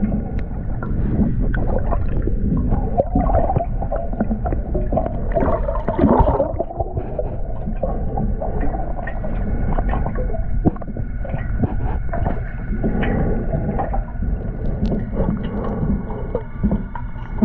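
Muffled underwater sound through a camera's waterproof housing: water sloshing and gurgling bubbles over a low rumble, with a faint steady hum and scattered small clicks.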